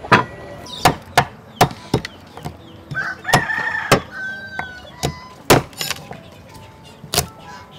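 Kitchen knife chopping through a raw mud crab on a thick wooden chopping block: about eight sharp knocks at irregular spacing. A rooster crows about three seconds in, for roughly a second.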